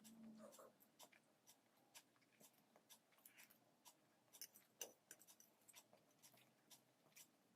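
Faint eating sounds: scattered soft clicks and ticks from someone eating poha (flattened rice).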